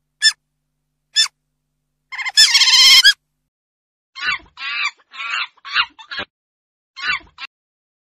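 Domestic chicken calls: two short clucks, then a louder harsh call lasting about a second, followed by a run of five quick repeated calls and one more near the end.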